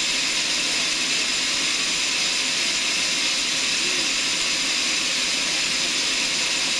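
Sawmill saw running steadily without cutting, an even, unchanging hiss.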